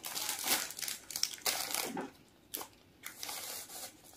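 Soft plastic tissue pack crinkling in several rustling bursts as it is handled and a facial tissue is pulled out.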